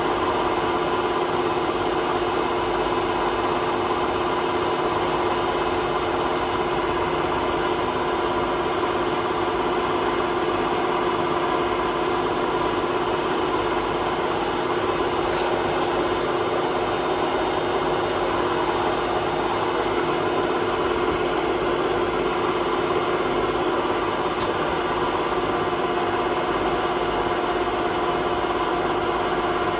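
Hotpoint WMA32 washing machine spinning at a steady speed: a constant drone with a whine that holds one pitch throughout, from a drum whose bearings are worn out.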